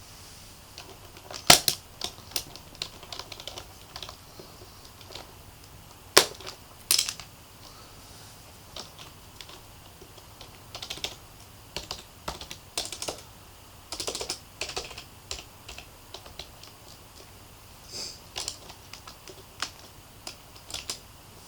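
Keys of a Logitech MK250 keyboard being typed on: irregular runs of light key clicks, with two much harder key strikes about one and a half seconds and six seconds in.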